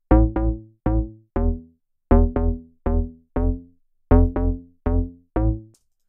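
A synth bass line from a Serum patch: a 'character' mid bass layered over a sine sub bass, playing the chord-progression notes. About a dozen short notes in a quick rhythmic pattern, each with a deep low end and a very short envelope that dies away fast.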